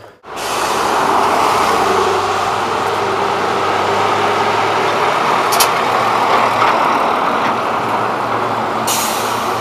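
Road traffic: a heavy truck and cars passing, a steady engine and tyre noise that holds level throughout, with a brief hiss near the end.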